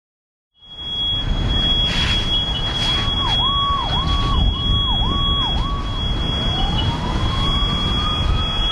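Fire-scene soundscape: a steady high-pitched alarm tone sounds throughout over the low rumble of idling fire apparatus. A siren warbles five times about halfway through, then another siren winds up in a rising wail near the end.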